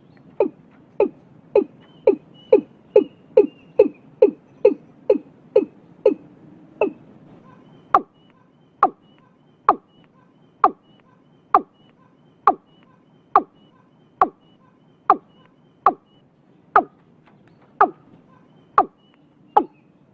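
Watercock calling: a series of short, hollow notes, each falling in pitch, about two a second at first, then slowing to about one a second after roughly eight seconds. Faint high chirps run beneath.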